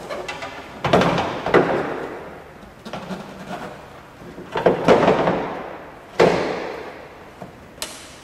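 A few loud clunks and knocks, each ringing out with echo in the garage, the kind made by handling parts or tools under the raised hood of a pickup.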